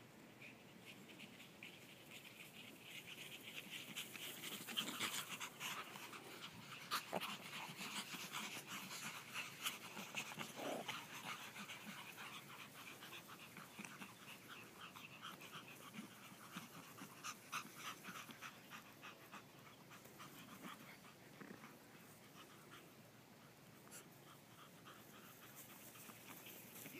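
Small Pomeranian dogs panting rapidly as they play, louder in the first half with a few short sharp sounds mixed in.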